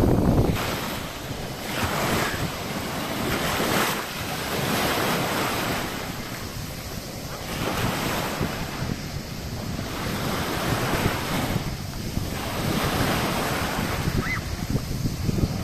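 Small sea waves lapping and breaking at the water's edge, washing up and draining back with a surge every two to three seconds. Wind buffets the microphone, heaviest at the start.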